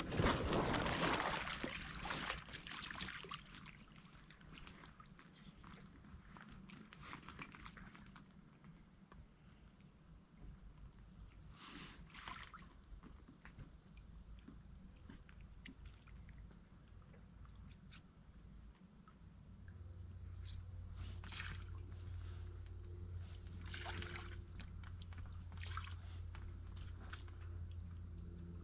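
Steady high-pitched insect drone, with a loud splashing, rustling noise in the first couple of seconds and a few faint sloshes of water later. A low hum comes in about two-thirds of the way through.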